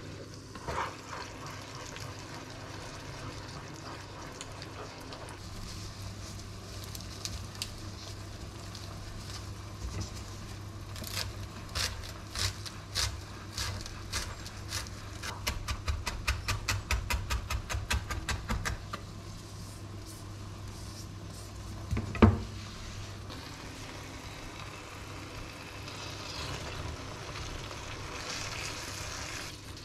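Chef's knife chopping fresh herbs on a wooden cutting board: scattered cuts, then a fast, even run of chops for a few seconds. A single loud knock follows, and near the end a frying pan of tomato and eggplant sizzles.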